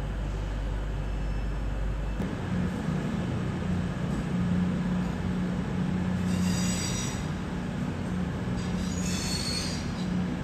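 London Overground electric train running slowly over the station pointwork, its wheels squealing high on the curves twice, about six and nine seconds in, over a steady low hum.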